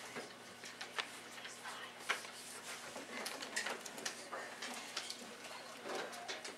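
Classroom of students working at their desks: scattered small clicks and taps of pencils, papers and desks, with a faint murmur of voices now and then.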